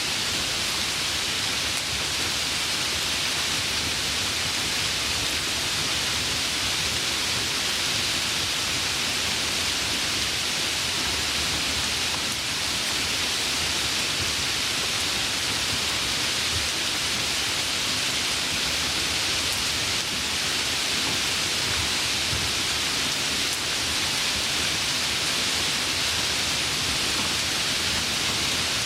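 Steady, even rain, a constant hiss of falling rain with no distinct drops or thunder.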